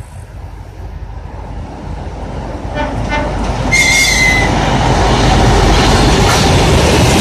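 2TE10 twin-section diesel locomotive with its two-stroke opposed-piston diesel engines, hauling a freight train as it approaches and passes close by. The engine and wheel rumble grows steadily louder. A brief high-pitched tone sounds about four seconds in.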